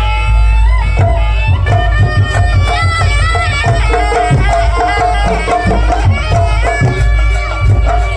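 Jaranan dance accompaniment: a reed shawm (slompret) plays a wavering, sliding melody over rapid hand-drum (kendang) strokes and a steady low gong and gamelan drone.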